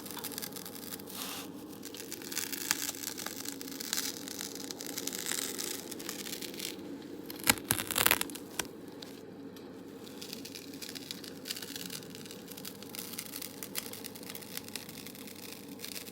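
Close-miked ASMR crinkling and scratching with small ticks and taps, and a brief cluster of louder sharp clicks about halfway through, over a steady background hiss.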